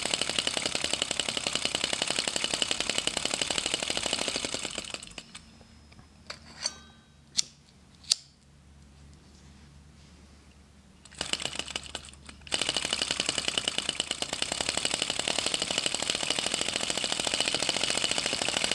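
Small Star Power vacuum (flame-licker) model engine running with a fast, even ticking. It stops about five seconds in, while its alcohol burner's wick is being adjusted. A few sharp metal clicks follow, and it starts up again about twelve seconds in with the same rhythm.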